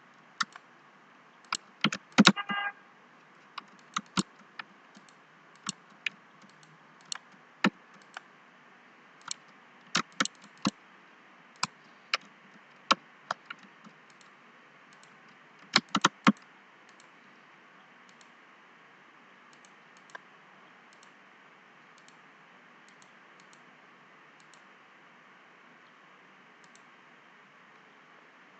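Computer keyboard keys and mouse buttons clicking in irregular, scattered bursts as drawing commands are typed and picked. The clicks thin out to a few faint ones after about seventeen seconds, over a faint steady hiss.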